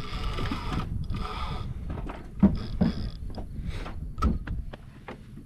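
Spinning reel whirring in short bursts while a hooked alligator pulls on the bent rod, with a few sharp knocks in between.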